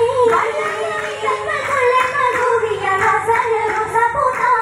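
Girls singing a Mappila song for an Oppana dance, one wavering melody line with a few sharp handclaps.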